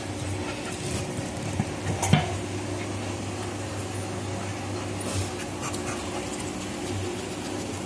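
Soft handling and rustling sounds with a sharp knock about two seconds in, over a steady low hum.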